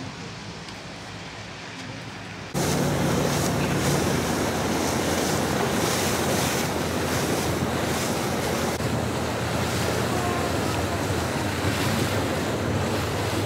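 Small motorboat under way: from about two and a half seconds in, its engine hums steadily beneath loud wind buffeting the microphone and water rushing past the hull. Before that, quieter open-air ambience.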